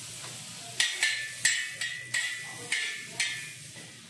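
Metal spoon knocking and scraping on a hot flat iron tawa, spreading melting butter: about seven sharp, bright clinks in quick succession, each fading fast.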